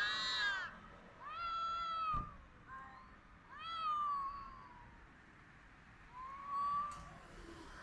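Domestic cat caterwauling: about four long, drawn-out yowls a second or two apart, each rising and then falling in pitch. It is the courting call of a cat in the mating season.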